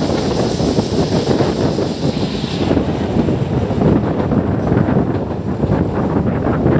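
Steady running noise of a meter-gauge passenger train heard from an open window, with wind buffeting the microphone.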